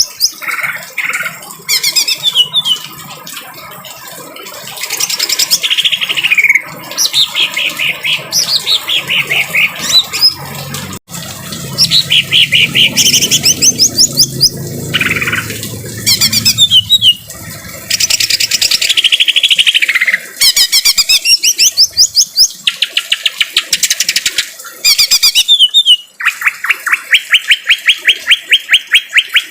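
Greater green leafbird (cucak ijo) singing a varied, harsh song of rapid chattering trills and sweeping whistles, ending in a fast, even trill.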